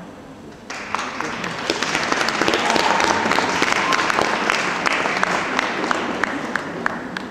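Audience applauding, starting suddenly under a second in, with single claps standing out, and slowly fading toward the end.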